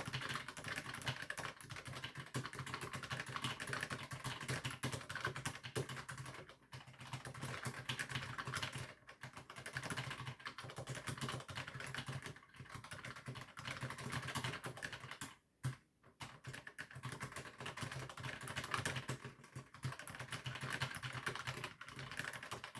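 Continuous fast typing on a Moergo Glove80 split keyboard with Kailh Choc v1 Pro Red low-profile linear switches, a dense run of light key clacks broken by a few short pauses.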